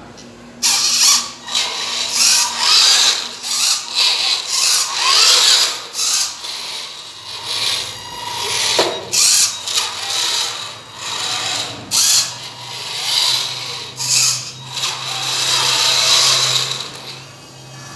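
Electric drive motor and gears of a radio-controlled scale dump truck whirring in short, repeated surges, starting and stopping about once a second.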